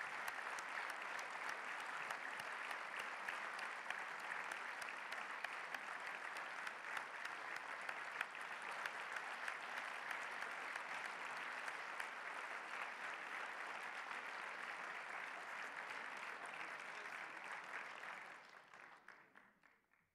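Large audience applauding steadily, a dense patter of many hands clapping that fades out near the end.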